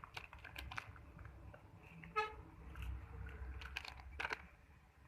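A vehicle horn gives one short toot about two seconds in, over a low steady rumble and scattered clicks.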